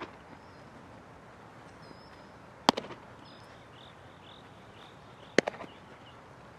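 A baseball smacking into a catcher's leather mitt, a sharp pop twice, about two and a half seconds apart, each followed by a couple of lighter clicks.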